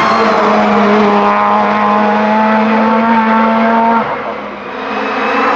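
Hillclimb-tuned VW Polo G40's 1.4-litre four-cylinder engine held at high revs under full throttle, its pitch climbing slowly as it pulls through a gear. About four seconds in the sound drops away suddenly, then swells again as the car comes nearer.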